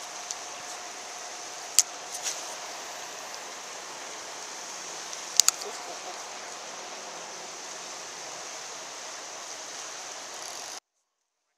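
Steady rush of river water flowing below a hydroelectric dam, with a few sharp clicks as the fishing rod and reel are handled, about two seconds in and again twice in quick succession at about five and a half seconds. The sound cuts to silence near the end.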